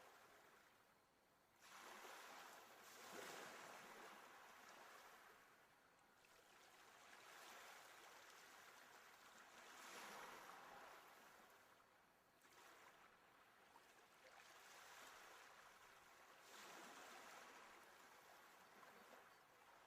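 Faint sea waves washing onto the shore, a soft hiss that swells and falls back every few seconds.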